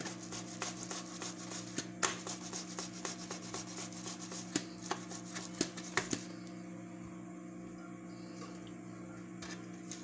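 Boiled red pumpkin grated by hand on a stainless steel grater: quick, soft scraping strokes, several a second, that stop about six seconds in. A steady low hum runs underneath.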